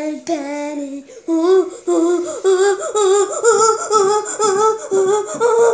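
A young girl vocalizing without words in a high voice, humming and sing-song: a run of short wavering notes that rise and fall, about three a second.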